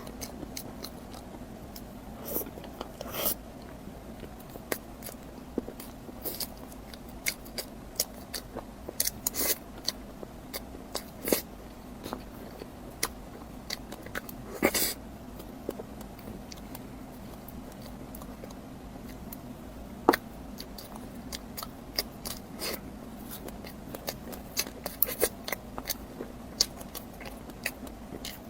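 Close-miked eating: a person biting and chewing food, with many short, sharp crunches and mouth clicks at irregular intervals over a low steady hum.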